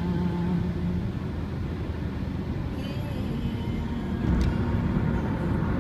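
Car driving at highway speed, a steady rumble of road and engine noise heard inside the cabin, with a brief click about four seconds in.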